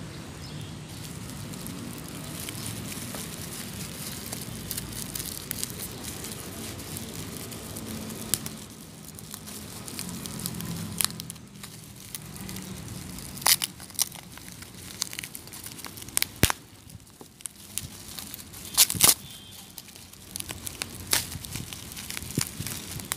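Plastic bubble wrap being crinkled and torn open by hand, with a handful of sharp cracks in the second half.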